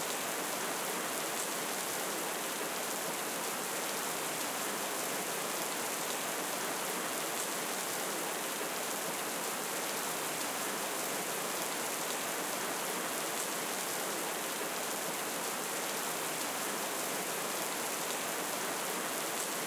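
Steady rain: an even, unbroken hiss that stays at the same level throughout.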